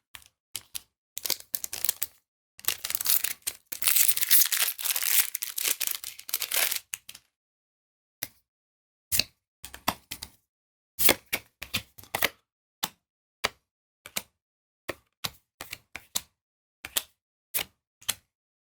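Foil booster pack wrapper crinkling and tearing as it is opened, for several seconds. Then a run of sharp clicks and snaps as Magic: The Gathering cards are flicked through one at a time.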